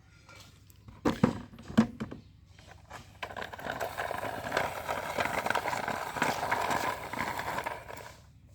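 Handled plastic toys: two sharp knocks, then several seconds of steady clicking and rattling, like small plastic wheels rolling or toy pieces jostling together.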